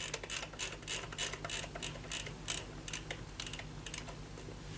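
Bush flip clock radio's minute flaps clicking over one after another, about six a second, as the time-set knob is turned to wind the minutes rapidly forward. The clicks thin out near the end.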